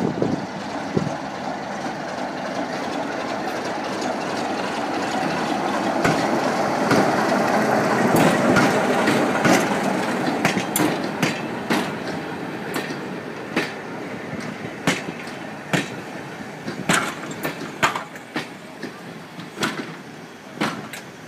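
Class 33 diesel locomotive with its Sulzer eight-cylinder engine running as it passes slowly, loudest about eight to ten seconds in. Then the dragged, unpowered electric unit coaches roll by, their wheels clacking over the rail joints in irregular knocks that fade toward the end.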